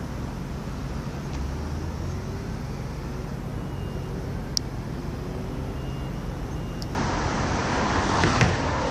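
Steady low rumble of distant road traffic, with the faint rising and falling drone of a passing vehicle. About seven seconds in it turns suddenly louder and rushing, with a couple of knocks just before the end.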